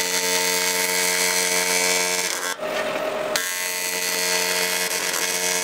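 AC TIG welding arc on aluminium from an Everlast Hurricane 220 MTS-C, a steady buzz over hiss. The arc goes out about two seconds in and is struck again about a second later.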